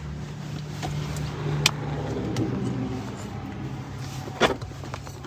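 A vehicle engine idling steadily, with two sharp clicks, one under two seconds in and a louder one near the end.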